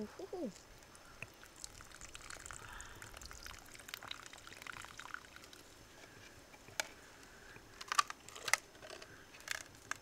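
Faint water trickling and pouring, then several sharp clicks in the last few seconds.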